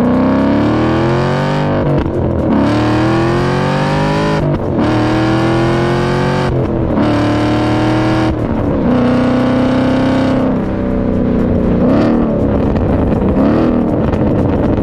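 2011 Ford Mustang's exhaust, with cat delete, X-pipe and axle-back, accelerating hard through four upshifts, the note climbing and dropping back at each shift. Then it holds steady, and near the end come quick throttle blips on downshifts from a downshift blip module.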